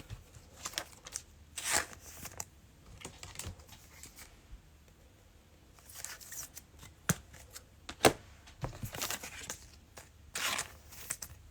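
Trading cards and their cellophane pack wrapper being handled: scattered crinkling, rustling and tearing, with a few sharper snaps about two and eight seconds in.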